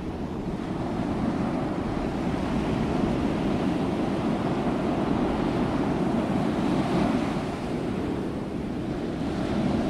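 Steady rush of wind on the microphone of a camera carried by a paraglider in flight.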